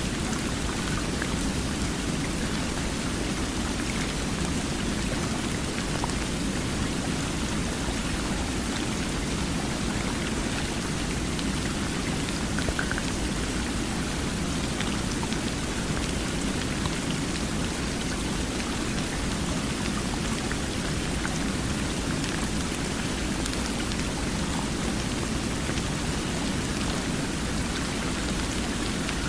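Steady rushing water: an even, unbroken wash of noise that holds the same level throughout.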